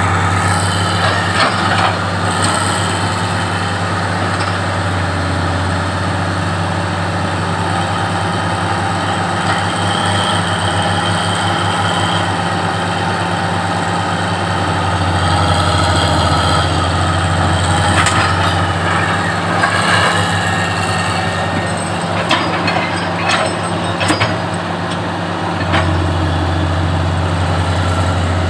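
Heavy diesel engine of an excavator or bulldozer running steadily with a deep, even drone. A few sharp knocks and clanks come in the second half.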